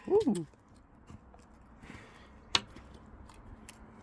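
One sharp crack of an axe striking and splitting a log of oak firewood, about two and a half seconds in. It comes after a brief falling vocal sound at the start.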